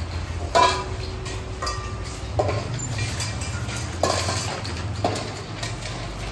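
Stainless steel dog food bowls clanking on the floor as food is served, about five metallic knocks. The loudest, about half a second in, rings on for nearly two seconds.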